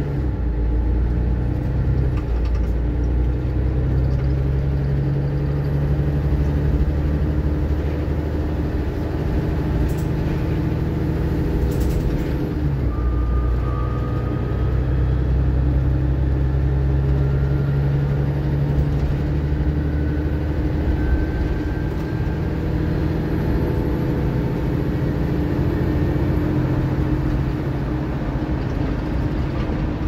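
Mercedes-Benz Citaro O530 bus's diesel engine running steadily under way, a continuous loud drone heard on board.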